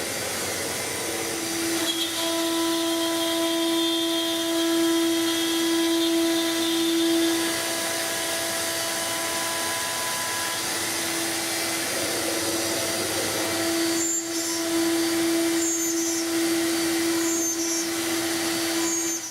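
AXYZ CNC router's routing spindle running with a steady whine over cutting and extraction hiss, louder through two cutting passes, with a few sharp clicks near the end before the sound cuts off suddenly.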